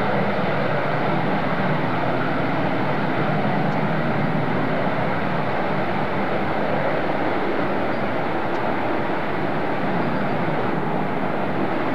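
B-1B Lancer's four General Electric F101 turbofan jet engines running steadily on the ground, a constant jet rush with no change in pitch or level.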